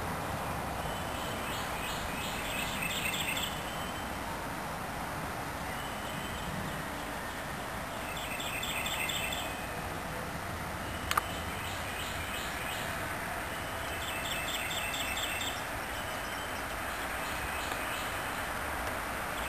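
A steady, unbroken roar like a jet airliner passing overhead, the unexplained sky sound heard for hours. Every few seconds a bird sings a short rapid trill over it, and a single sharp click comes about eleven seconds in.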